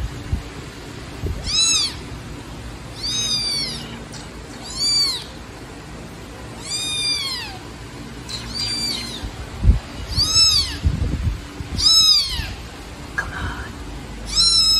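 Young black kitten meowing repeatedly, about eight high-pitched meows spaced a second and a half to two seconds apart, each rising then falling in pitch, which the rescuer takes for a kitten missing its mother. A few soft low thumps come in the middle.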